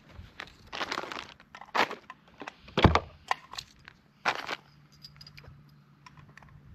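A single precision rifle shot about three seconds in, with scattered clicks and rustles of handling around it.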